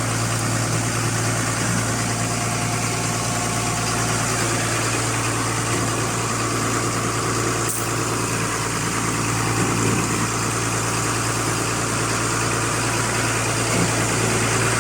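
Diesel engine of an HBTS80 trailer concrete pump running steadily, a constant low hum with no change in speed.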